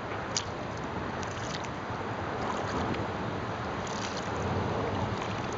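Kayak paddling on a river: the paddle dips and splashes in the water every second or so over a steady rush of water and wind.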